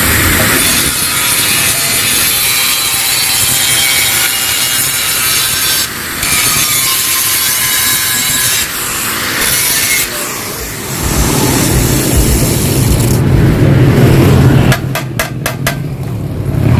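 Harsh grinding or cutting on metal for about eleven seconds, with short breaks. Then a motorcycle engine runs with a low steady drone, with a quick run of sharp cracks near the end.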